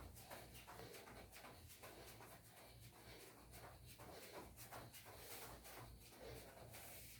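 Near silence: room tone with a faint low hum and light scattered rustles.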